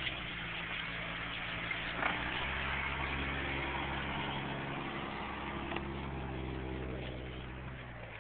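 Engine of a two-door SUV running steadily at low speed close by, a low even hum that eases off near the end as it pulls away.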